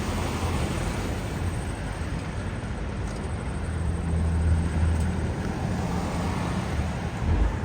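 Highway traffic passing by: a steady low engine rumble with tyre and road noise, swelling for a couple of seconds around the middle as a heavy vehicle goes by.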